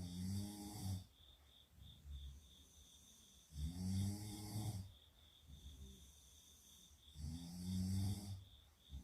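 A sleeping girl snoring: three loud snores about three and a half seconds apart, with fainter breathing between them.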